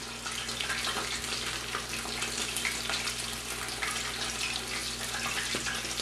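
Cornstarch-coated chicken pieces deep-frying in hot pork lard: a steady sizzle full of fine crackles.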